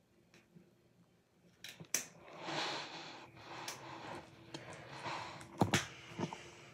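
Handling noise close to a phone's microphone: rustling with a few sharp clicks and knocks, starting about two seconds in.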